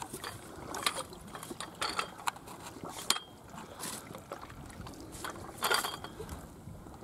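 Irregular clicks and light knocks from a spinning reel and rod being handled.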